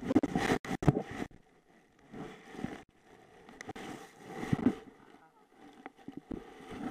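Helmet camera knocking and scraping against grass and a crashed bike's tyre, a rough cluster of knocks in the first second. Then softer rustling and wind buffeting on the microphone, with a few small knocks.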